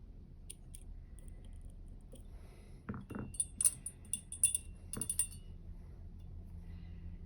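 Metal lock picks and tension tool clicking and clinking in a three-row dimple lock (U Shin Showa NX) being picked: a few faint ticks, then a flurry of sharp metallic clinks in the middle.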